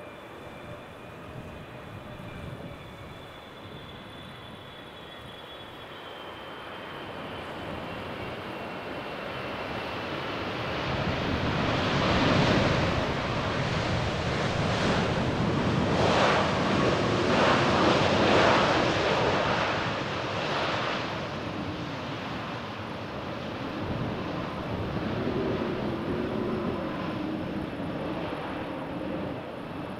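Jet airliner passing on its landing approach: a faint high engine whine slowly falls in pitch, then the engine roar swells to its loudest about halfway through and slowly fades away.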